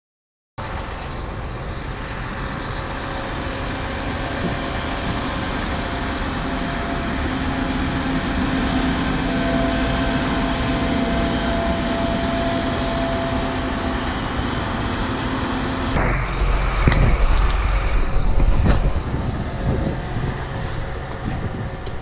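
Large farm machine running steadily, a dense even noise with a faint held whine over it. About sixteen seconds in it cuts to a heavy low rumble of wind on the microphone, with a few sharp knocks.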